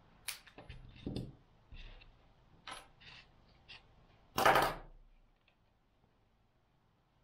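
Small clicks and rustles of hands handling fishing line, then one louder knock about four and a half seconds in, as something is set down or picked up on a wooden table.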